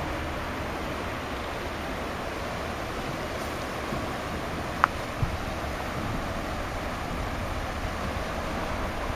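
Steady rush of high creek water flowing over a drowned low-head dam, its waterfall washed out by flood water. A short sharp click about five seconds in.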